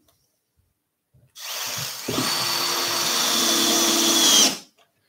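Cordless drill-driver driving a stainless steel screw into the wooden chair frame. It runs for about three seconds with a steady whine, gets a little louder near the end and cuts off suddenly as the screw seats.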